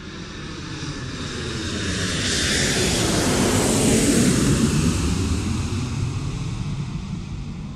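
An engine passing by: it grows louder, peaks about four seconds in, then fades as its pitch drops.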